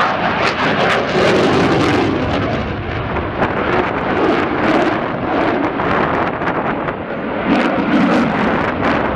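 Eurofighter Typhoon jet flying overhead, its two EJ200 turbofans giving a loud, rough roar with crackle through it that rises and falls a little as it manoeuvres.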